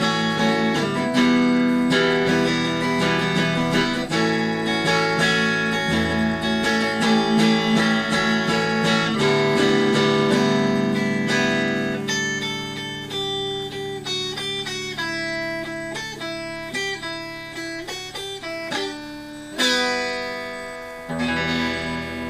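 Instrumental desert-rock guitar on a Squier Affinity Stratocaster through a Fender Frontman 15G amp. Dense strummed chords give way after about twelve seconds to sparse picked notes, and near the end a chord is struck and left to ring and fade.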